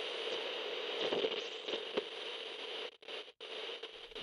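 Crackling, hissing static with scattered clicks, cutting out twice for a moment about three seconds in.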